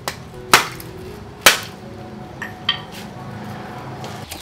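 Lumps of charcoal being broken up with a hammer on a concrete floor: sharp knocks, the two loudest about half a second and a second and a half in, with lighter taps at the start and twice more between two and three seconds in.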